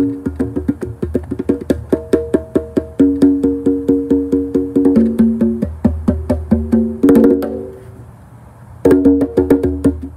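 A pair of congas played with bare hands in a fast pattern of ringing open tones and sharp strokes. About seven seconds in there is a quick flurry of strokes, then the drumming stops for about a second before picking up again.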